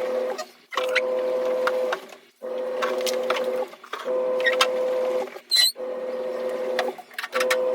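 A small electric motor running in repeated bursts of about a second each, stopping briefly between them, with clicks on top; a short high squeak about two-thirds of the way through.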